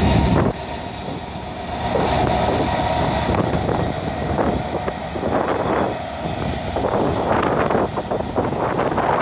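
A GBRf Class 66 diesel-electric freight locomotive passes at low speed, its two-stroke EMD V12 engine running with a steady whine above it. In the second half the freight wagons rumble past, clattering over the rail joints.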